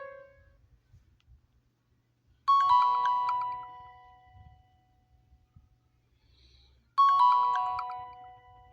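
Stock ringtone of an Alcatel Onetouch Big Easy Flip: a short, bright chime phrase of a few notes that rings out and fades, repeating about four and a half seconds later. The end of a different tone fades out in the first half second.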